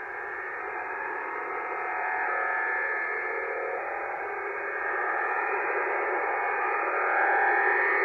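Over-the-horizon military radar signal heard on the 40-metre amateur band through an HF radio's speaker, received at about signal strength 9 and creeping up in frequency: a steady noise-like signal with faint held tones inside, getting louder about two seconds in and again near the end.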